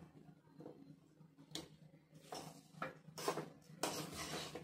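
Metal spatula stirring and scraping dry peanut powder and spices around a metal kadai: a string of short, irregular scrapes, about half a dozen, busiest near the end, over a faint steady low hum.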